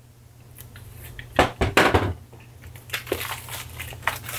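Hands handling and unwrapping a small cardboard product box: crinkling of plastic wrap and tapping of cardboard, with a cluster of sharp clicks about one and a half to two seconds in, over a steady low hum.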